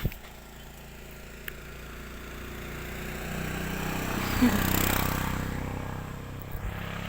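A motor vehicle passing by, its engine and tyre noise swelling for several seconds, peaking just past the middle and then fading. A short thump is heard right at the start.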